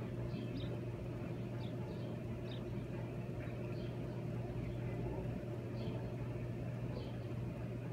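Steady low machine hum with faint, short high chirps scattered through it.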